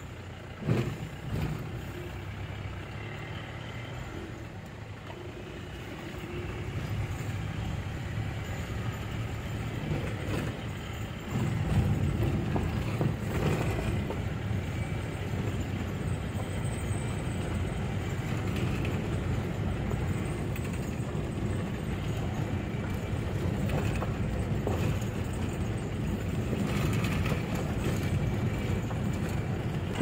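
Vehicle engine and road rumble while driving, louder from about seven seconds in and stepping up again about eleven seconds in, with two short knocks in the first two seconds.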